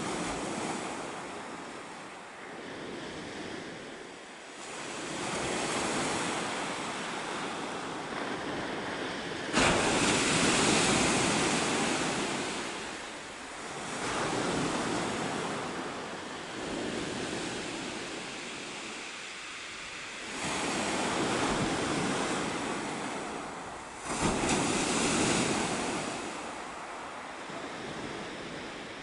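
North Sea waves breaking on a shingle beach and washing back over the pebbles, in slow swells every few seconds. The loudest breaks come suddenly, about ten seconds in and again about five seconds before the end.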